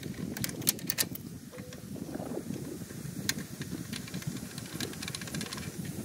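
A 1/4 inch drive ratchet with a 14 mm socket on an extension, backing out a bolt under a riding mower: short runs of sharp metallic clicks over a steady low rumble, a cluster in the first second and a few more later.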